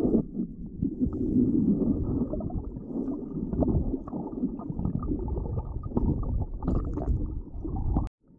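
Muffled underwater rumble of rough water surging and churning around the microphone, with small knocks and bubbling; it cuts off suddenly near the end.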